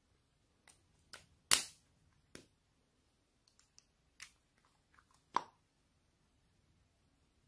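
Small plastic caps and lids popping off and clicking on miniature toy containers: about six sharp clicks and pops, the loudest about one and a half seconds in.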